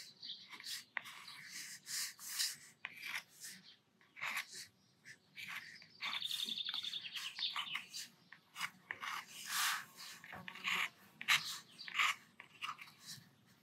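Metal dip pen nib scratching across watercolour paper in short, irregular strokes as lines and fur are inked, with a fast run of rapid scratches about six seconds in lasting over a second.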